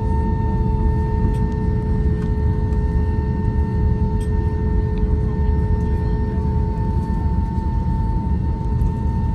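Airbus A321 cabin during taxi: the engines at low power give a steady low rumble with a constant droning hum over it, and a few faint clicks.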